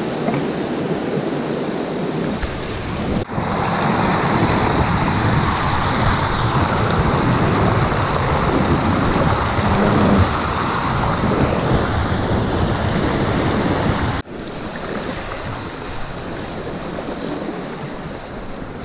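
Steady rushing of a fast mountain river. It turns abruptly louder and brighter about three seconds in, then drops back to a softer rush near the end.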